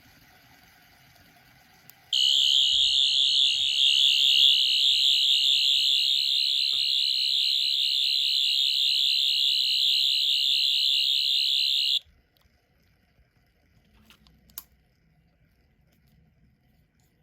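Rubbertoe Replicas 10th Doctor sonic screwdriver replica sounding its electronic sound effect: a loud, high-pitched warbling buzz that switches on suddenly about two seconds in and cuts off abruptly about ten seconds later. A faint click comes a couple of seconds after it stops.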